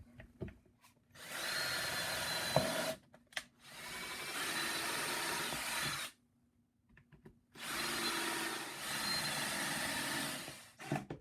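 Power drill running in three runs of about two to three seconds each, with short pauses between, driving screws into old barnwood boards.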